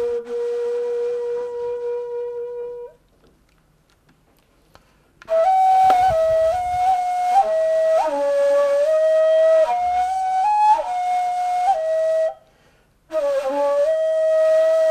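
Ney, the end-blown reed flute of Sufi music, playing a slow solo melody: a long held note, a pause of about two seconds, a phrase of several notes stepping up and down, then another long held note near the end.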